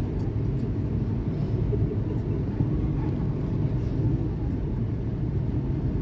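Commuter electric train rumbling steadily at a station, a low, even sound with no sharp events.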